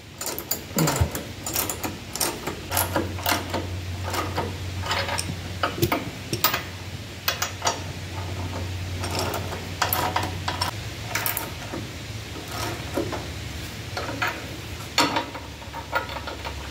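Flex-head ratchet wrench with a 22 mm socket clicking in repeated short strokes as bolts are run down tight.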